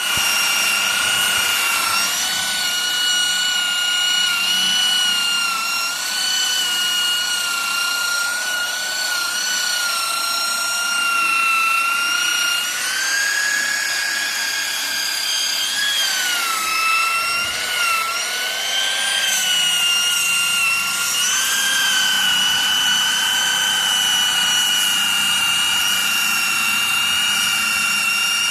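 Handheld electric power tool sanding carved wood: a steady, high motor whine that sags in pitch now and then as the abrasive is pressed into the wood, most clearly a little past halfway.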